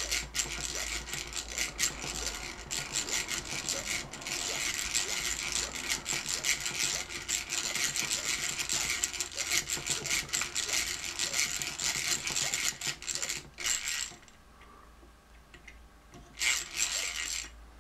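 Hand drill with a 3 mm bit drilling out peened-over metal rivets on a BMW Hall effect ignition trigger: a continuous scratchy grinding of the bit cutting metal, with a rapid clicking from the cranked drill. It stops about 14 seconds in, and a short burst of drilling comes again near the end.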